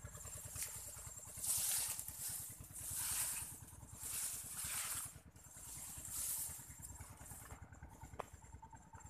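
Corn leaves rustling in four swells of about a second each, over a steady low rumble.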